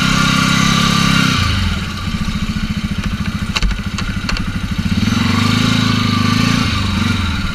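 Can-Am Outlander 450's single-cylinder engine revving, dropping to a slow throb about a second and a half in, revving up again around five seconds and falling back to the throb near the end. A few light clicks sound in the middle.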